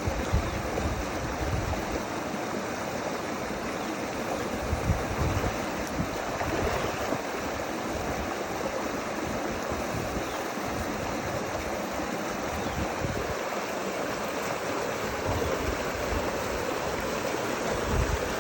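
Steady rush of flowing stream water, with wind buffeting the microphone in irregular low rumbles.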